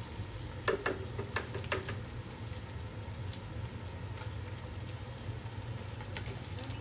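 Tilapia fillets frying in a pan, a steady sizzle while they blacken. A few sharp clicks and knocks come about a second in.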